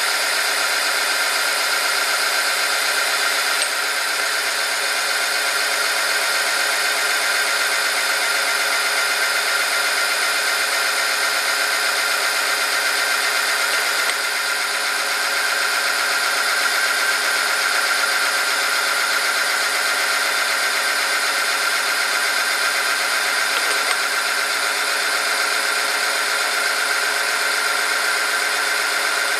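Oil-film friction tester running: its electric motor turns a steel roller that rubs against a weighted test sample in 5W-40 oil heated to 100°C, a steady machine whine with a strong high tone. Weights keep being added to the lever arm to load the oil film until the machine stalls.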